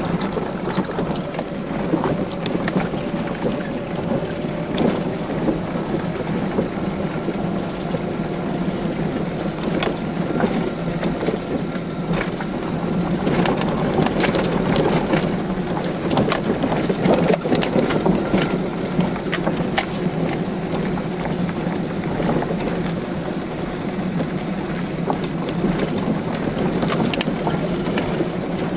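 Car cabin noise while driving over a rough, potholed gravel road: a steady low drone of engine and tyres, with frequent knocks, clicks and rattles as the car bounces over stones and holes. It gets somewhat louder about halfway through.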